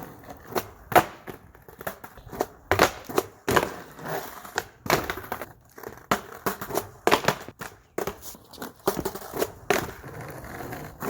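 Skateboard clacking and knocking: a string of irregular sharp clacks, the kind made by a board's tail popping and the board landing during tricks.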